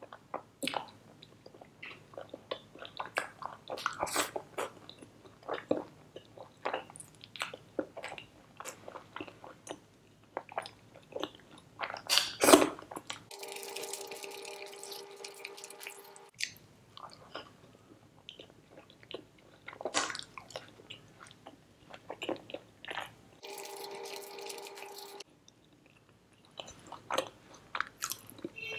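Close-miked wet chewing and lip-smacking of a person eating butter chicken, butter naan and chicken biryani by hand, heard as many short irregular smacks, with one louder bite about twelve seconds in. Twice a steady electronic tone is laid over it, once for about three seconds along with the subscribe graphic and once for about two seconds.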